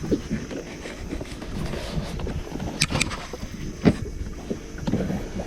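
Low, uneven rumble on a small fishing boat, broken by a few sharp knocks, the loudest about three and four seconds in.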